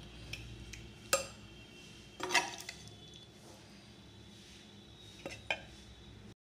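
Metal ladle clinking and scraping against a metal pot and a non-stick pan as cooked chicken is spooned onto a layer of rice: a few separate clinks over a low steady hum. The sound cuts off abruptly near the end.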